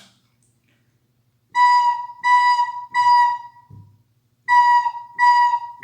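Soprano recorder playing the note B in a drum-like rhythm: three short, even notes about half a second each, a one-beat rest, then three more.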